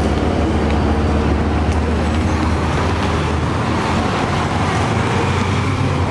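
Steady road-traffic noise of cars and buses at a busy street crossing, with a low engine hum underneath.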